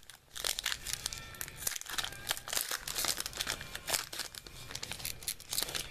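Foil wrapper of a baseball card pack being torn open and crinkled in the hands: a rapid, irregular crackle of foil.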